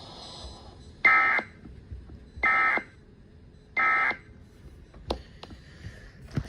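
Emergency Alert System end-of-message data tones: three short, identical buzzy data bursts about 1.3 s apart, the SAME coded signal that closes an alert broadcast.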